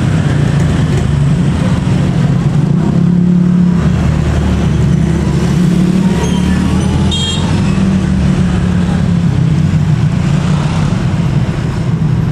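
Steady low rumble of motor vehicle engines, as in road traffic at a level crossing, with a short high-pitched toot about seven seconds in.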